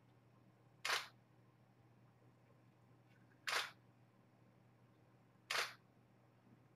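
Camera shutter firing three times, each a short, sharp click, a couple of seconds apart.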